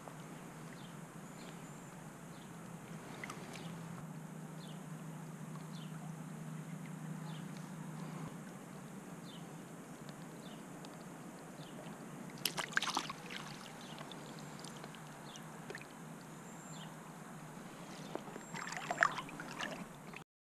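Small creek running steadily, with water splashing briefly about halfway through and again near the end as hands and a brown trout move at the surface during its release from a landing net. Faint short chirps repeat every second or so.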